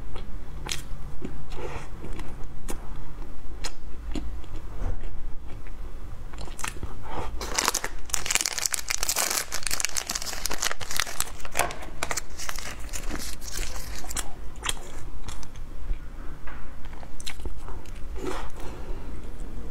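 Close-up eating of a soft packaged cheese cake: bites and chewing with small wet clicks. About eight seconds in comes a stretch of plastic wrapper crinkling and tearing as a new cake is unwrapped.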